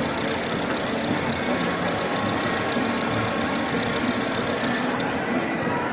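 Steady din of a very large crowd filling an open plaza.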